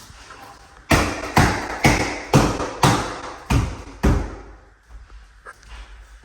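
Seven firm thumps on an epoxy shower surround panel, about two a second, as it is struck to press it into the glue on the wall.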